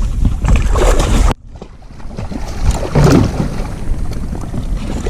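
Wind buffeting the microphone as a loud low rumble, cut off abruptly about a second in. Quieter scattered knocks and rustles follow.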